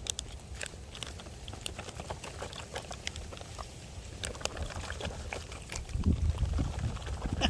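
Scattered light clicks and rustles of hands handling a plastic ration pouch and utensils, over a steady low rumble.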